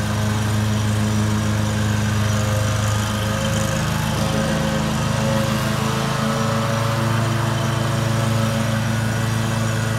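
Commercial lawn mower engine running steadily under cutting load, with an even, constant drone.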